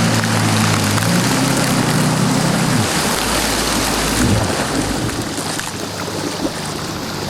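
Yamaha jet ski engine running over a steady rush of water and wind; the engine tone drops away about three seconds in, leaving the rushing water and wind noise.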